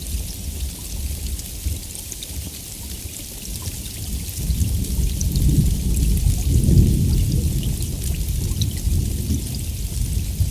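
Steady heavy rain with scattered drops, and a low rumble of thunder that builds from about four seconds in, is loudest around the middle, then slowly eases.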